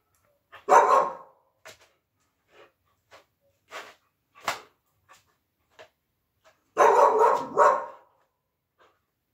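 Siberian husky barking in play: one loud bark about a second in, quieter short sounds through the middle, and three barks close together near the end.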